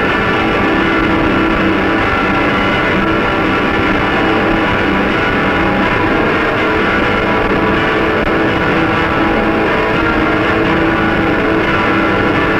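Lo-fi experimental noise music: a steady, unbroken drone of many held tones, dense and muffled with little top end. It is a home cassette recording, taped through the air by a portable reporter's recorder from another cassette recorder.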